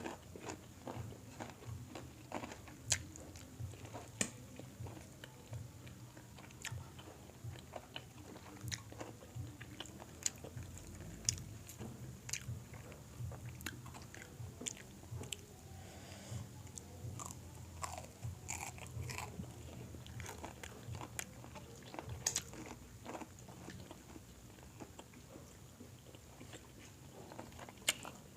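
Close-miked eating: a person biting and chewing crispy fried chicken, with many irregular sharp crunches throughout.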